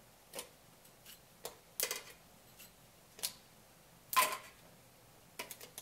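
Irregular sharp clicks and light metallic taps as a fluorescent tube is touched again and again to the rim of an electrophorus's metal pie pan, each contact discharging static electricity that makes the tube flash. There are about eight clicks, and the loudest comes about four seconds in.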